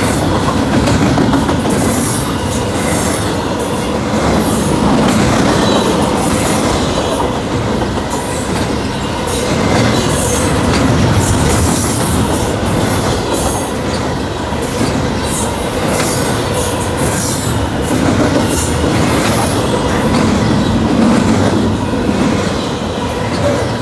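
Double-stack intermodal freight train's well cars rolling past fast and close: a steady loud rush of steel wheels on the rails with irregular clattering clicks.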